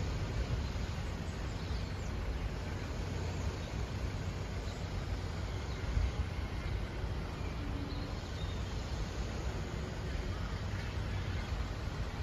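Steady outdoor background noise: an even low rumble with a faint hiss above it, with no single event standing out.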